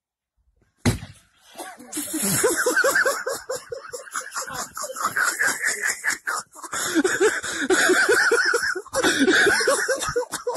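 A single sharp impact about a second in, as an overhead swing strikes an object, followed by hard, continuous laughing in rapid pulsing bursts.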